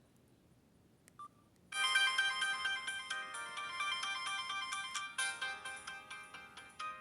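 Samsung C3011 mobile phone playing a polyphonic ringtone melody through its small built-in speaker. A short key beep comes about a second in, the tune starts just after, and it breaks off and starts again about five seconds in and once more near the end.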